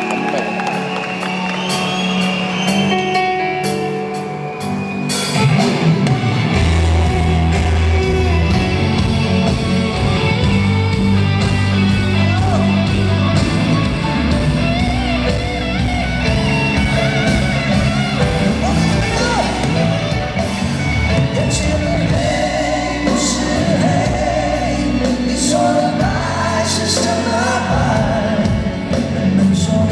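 Live rock band playing a ballad, electric guitars and keyboards with singing over them; bass and drums come in strongly about six seconds in.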